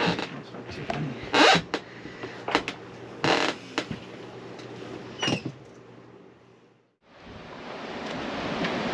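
Several short rustles and knocks, fading out two-thirds of the way through. After a moment of silence, a rush of wind on the microphone comes in and grows steadily louder.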